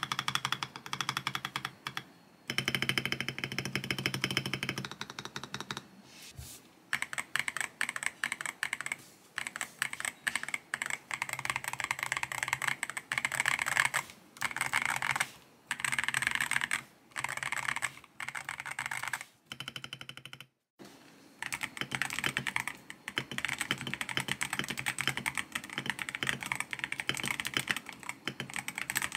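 Typing on a tape-modded GMK67 mechanical keyboard with Ajazz Kiwi tactile switches and XDA PBT keycaps: fast runs of key clacks broken by short pauses.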